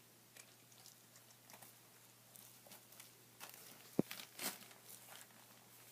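Kittens scampering and playing, with faint scattered crinkling, scratching and light ticks. One sharp click comes about four seconds in.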